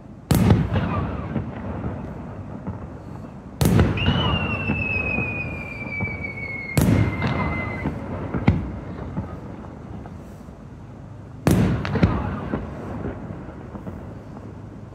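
Aerial firework shells bursting: four loud booms, the first three about three seconds apart, each trailing off over a few seconds. A sharp crack comes a little past halfway, and after the second boom a long whistle slowly falls in pitch.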